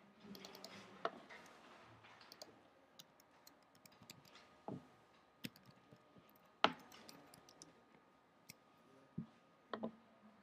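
Faint, scattered clicks of a computer mouse and keyboard at irregular intervals, the loudest about two-thirds of the way through.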